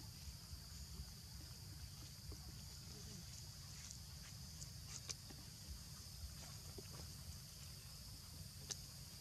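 Faint water sounds of a young long-tailed macaque swimming through a duckweed-covered pool: a few soft splashes and drips, over a steady high hiss and low rumble.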